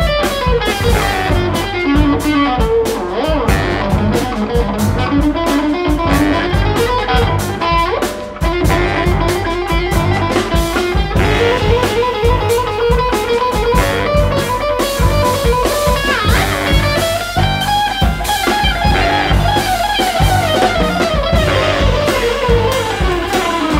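Ten-piece jazz ensemble playing live: an electric guitar carries a lead line that glides and bends in pitch, over a drum kit and bass.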